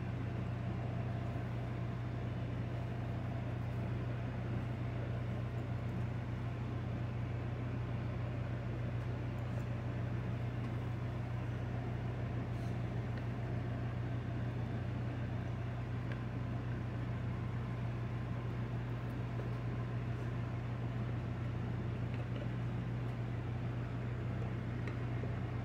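A steady low hum with an even hiss above it.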